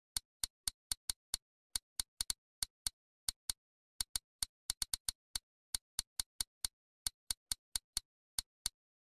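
Typing sound effect: sharp single key clicks, about three to four a second at uneven spacing with short pauses between groups, one click for each letter of a line of text being typed out.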